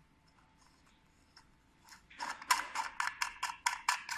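Rapid plastic clicking, about four clicks a second, starting about two seconds in, as a fitting is twisted onto the outlet of a small air pump. Near silence before it.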